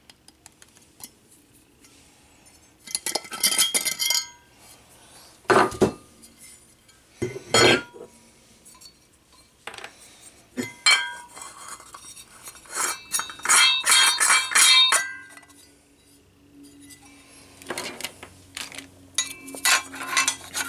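Plastic camera-mount parts and loose metal screws and washers being handled on a tabletop: scattered clinks, knocks and clicks, with two longer bursts of rattling, about three seconds in and again past the middle.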